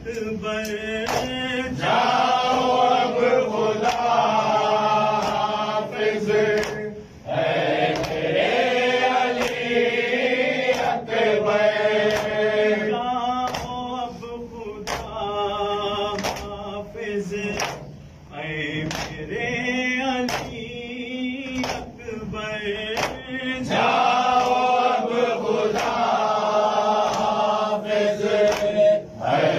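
A group of men chanting an Urdu noha, a Muharram lament for Ali Akbar, in unison without instruments, with short pauses between lines. Rhythmic strikes of hands on chests (matam) keep time about once a second.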